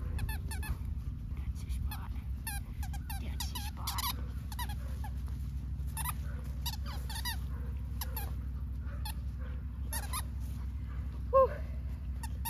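Dog chewing a squeaky toy, its squeaker giving many short, wavering squeaks at irregular intervals, with one louder squeak near the end. A steady low hum runs underneath.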